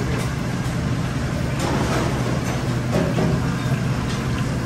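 Steady low roar of a commercial gas wok range and kitchen ventilation, with hot oil sizzling as battered pieces deep-fry in a wok.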